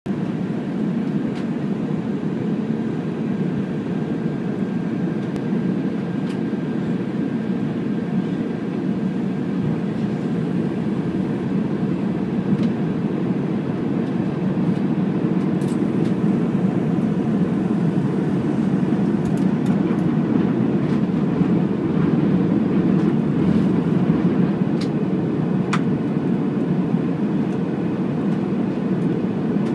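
Steady cabin noise of an Airbus A320 on approach, heard from a seat by the wing: a low, even rush of engine and airflow. A faint high whine sits over it and fades out about ten seconds in.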